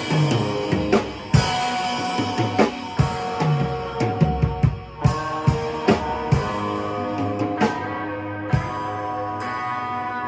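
Electric guitar playing rock chords and riffs over a drum kit beat. About eight and a half seconds in the drums drop away and the guitar chords go on ringing.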